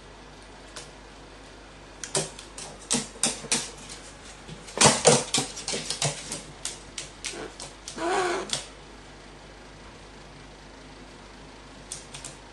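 A carrion crow's beak pecking and tapping rapidly against a stainless-steel shelf top and plastic feeding cups, an irregular run of sharp clicks with a short vocal sound about eight seconds in and a few more taps near the end.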